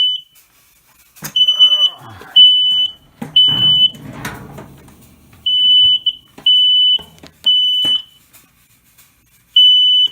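Smoke detector alarm sounding, loud high-pitched beeps about half a second long in sets of three with a pause between sets, the standard evacuation pattern. It has been set off by theatrical fog from a fog machine a few feet away. Rustling and clattering from handling are heard in the first few seconds.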